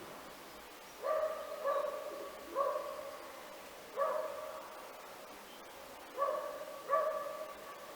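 Six short, pitched animal calls at uneven intervals, each sharp at the start and then fading.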